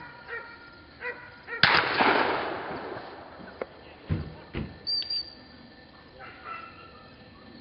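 A single shotgun shot about one and a half seconds in: a sharp crack with a tail that fades over a second or so. A few fainter knocks and a brief high tone follow.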